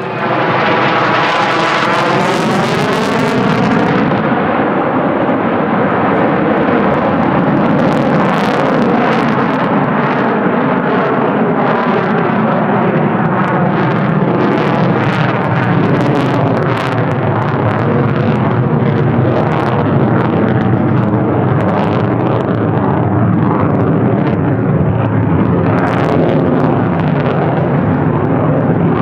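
F-35A Lightning II's single F135 turbofan, loud as the jet passes close. The pitch sweeps down over the first few seconds, then gives way to a long, steady jet noise full of sharp crackle.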